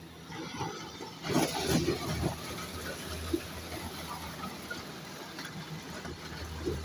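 An engine running steadily with a low hum, with a louder, brief noisy burst about a second and a half in.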